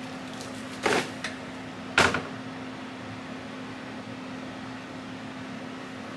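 Two short, sharp clatters about a second apart over a steady hum.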